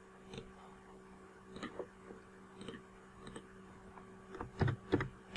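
Faint computer mouse and keyboard clicks, scattered at first and then a quick run of louder clicks near the end as a short word is typed, over a steady low electrical hum.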